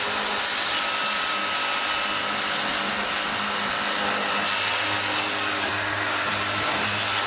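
Ryobi EZ Clean 18V ONE+ cordless power cleaner running steadily: its small pump motor humming under the even hiss of the spray.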